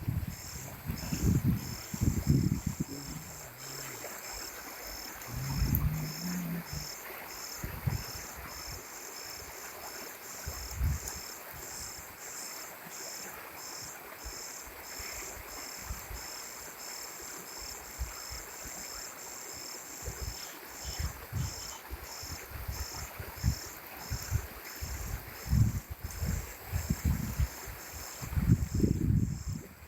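An insect chirping in a steady high-pitched rhythm, a little under two chirps a second, with low thumps and rumbles near the start and end.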